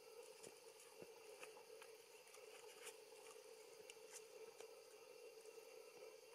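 Near silence: a faint steady hum with a few scattered soft clicks.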